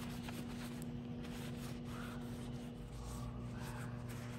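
Paper towel rubbing and rustling as the steel head of a ball peen hammer is wiped down with gun solvent to clean off surface rust. A steady low hum runs underneath.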